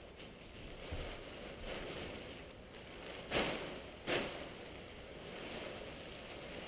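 Faint rustling of a nylon parachute canopy and its suspension lines being handled and flaked, with two brief louder swishes of fabric about three and a half and four seconds in.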